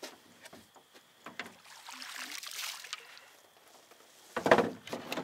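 Water splashing and dripping around a boat as a catfish is landed, with a few light knocks, then a loud thump against the boat about four and a half seconds in.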